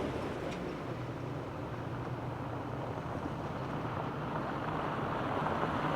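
Jeep driving, a steady low hum of engine and tyre noise with a light rush of wind.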